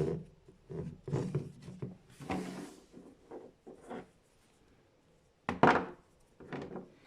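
Objects being handled and set down: irregular knocks, clicks and rubbing, with the loudest clatter about five and a half seconds in. No blower is running.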